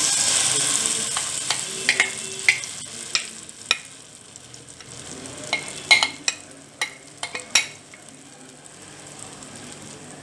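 Chana dal paste hitting hot mustard oil in a kadai: a loud sizzle that fades over the first few seconds, then scattered sharp pops over a quieter frying hiss.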